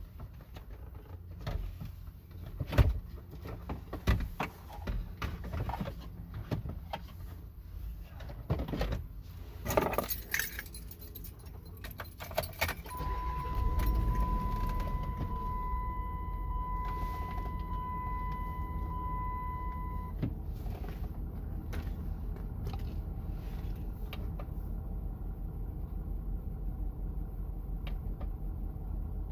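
Keys jangling and scattered clicks and knocks, then about thirteen seconds in the Dodge Durango's engine starts and runs at a steady idle. A steady high beep sounds for about seven seconds after the start.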